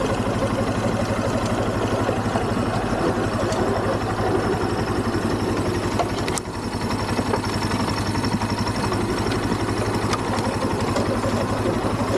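ATV (quad) engine running steadily at low speed as the machine rolls slowly over snow, with a brief dip in level about halfway.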